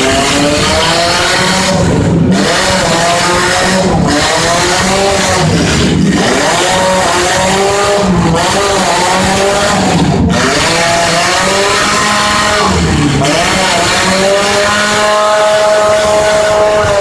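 Demolition derby car engines revving hard and dropping off again and again as the cars drive back and forth, loud and continuous.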